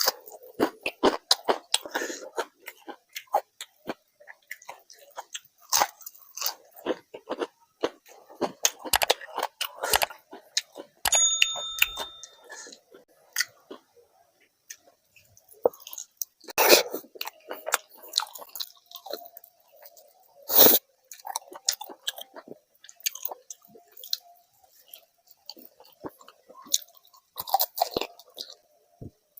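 Close-miked eating: chewing, mouth smacks and crunches of food, coming in irregular bursts of sharp clicks, with a few louder crunches about halfway through.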